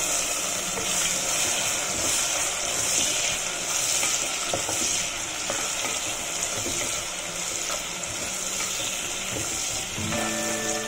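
Chopped onions sizzling in hot butter and oil with whole spices in a clay pot, stirred with a wooden spatula: a steady high hiss of frying with faint small crackles.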